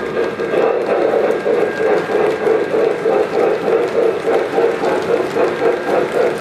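O-gauge model train, a Lionel Union Pacific Challenger steam locomotive hauling wood-sided reefers, running past with a steady rhythmic pulse of about three to four beats a second.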